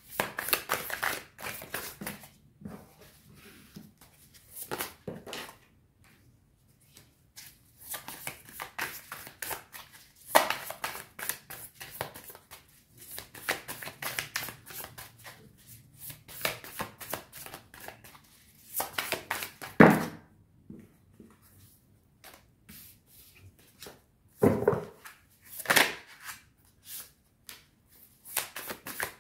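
A tarot deck being shuffled by hand in spells of quick, rustling card clicks, broken by short pauses as cards are drawn and laid down on a cloth. There are a few sharper card snaps about two-thirds of the way through.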